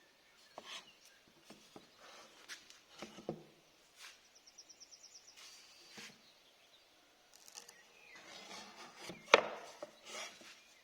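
Scattered knocks and scraping of wooden cupboard parts being handled during restoration work, with a quick run of ticks about four seconds in and one sharp, louder knock near nine seconds.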